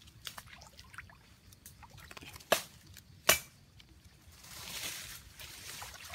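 Shallow muddy water sloshing and splashing, with small irregular drips and clicks, two sharp knocks about two and a half and three and a quarter seconds in, and a longer rush of splashing around four and a half seconds in.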